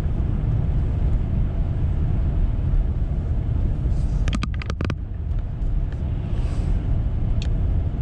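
Steady low rumble of a four-wheel-drive vehicle driving on a slushy, snow-covered road, heard from inside the cabin. A quick run of several sharp clicks comes about halfway through.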